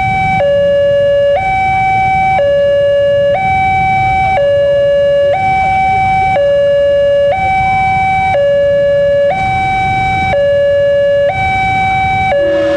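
Railway level crossing's electronic warning alarm sounding: a loud two-tone signal that switches between a higher and a lower tone, each held about a second, warning that a train is approaching. Underneath runs a low traffic rumble, and near the end a brief lower steady tone joins in.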